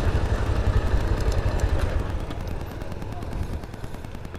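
Motorcycle engine running under the rider, with a low rumble of wind on the microphone; it gets quieter about two seconds in.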